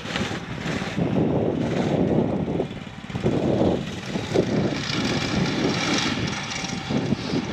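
Kids' snowmobile engine running as it is ridden, rising and falling in loudness.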